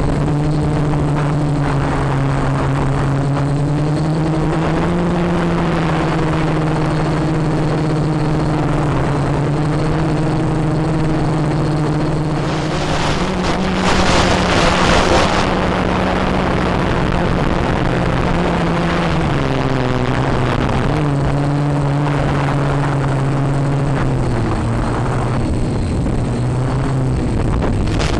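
Multirotor copter's propellers humming, the pitch stepping up and down now and then as the motors change speed, over steady wind noise. About halfway through a louder rush of noise lasts a couple of seconds.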